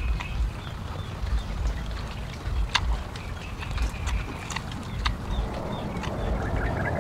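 A person chewing food close to the microphone: a run of soft, irregular thumps, with a few sharp clicks.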